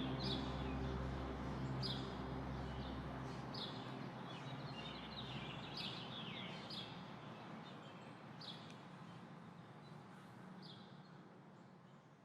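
Small birds chirping, short high calls every second or two, over a steady background hiss. Low held music notes die away in the first few seconds, and the whole sound fades out gradually.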